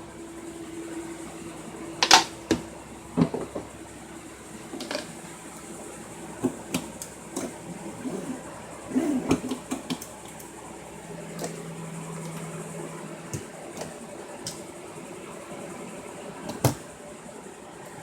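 Scattered knocks and clicks of kitchen cabinet doors and drawers being handled in a motorhome, over a steady low hum.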